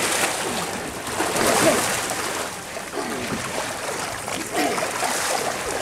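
Water splashing and sloshing at the boat's side as a hooked bull shark thrashes while being grabbed by the tail.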